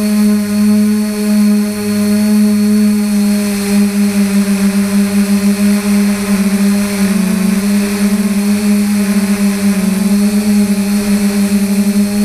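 Quadcopter's DJI 2212 motors and 9450 propellers buzzing steadily in flight, a loud, fluttering hum; the pitch wavers briefly a couple of times as the motors adjust speed.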